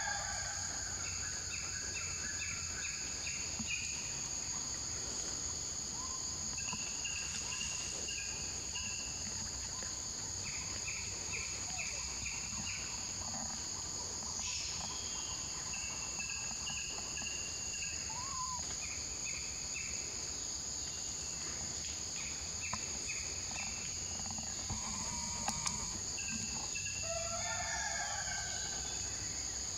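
Rural outdoor ambience: insects drone in a steady high pitch, a bird repeats quick trains of chirps every few seconds, and a rooster crows near the end.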